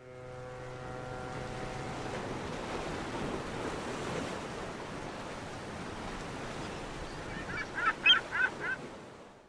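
Sea waves washing steadily, with a low horn note fading out in the first two seconds. Near the end, a run of about five short seagull cries, the loudest part.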